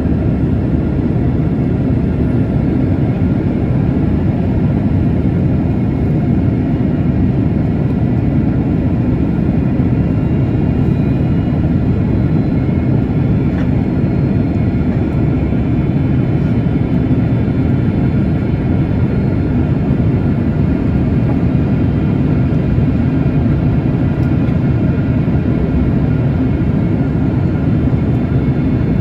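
Steady airliner cabin noise in flight: a constant low rumble of engines and airflow with faint steady high tones over it, unchanging throughout.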